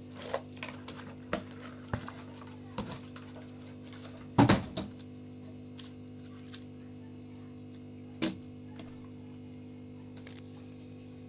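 Clicks and knocks of toy packaging being cut and handled to free the toy truck, the loudest a short cluster about four and a half seconds in and a single knock near eight seconds, over a steady hum.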